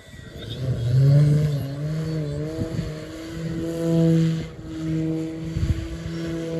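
Large radio-controlled Slick aerobatic model plane flying its display, its motor and propeller droning at a steady pitch. The drone swells about a second in, glides up and down with the throttle, and dips briefly a little past the middle.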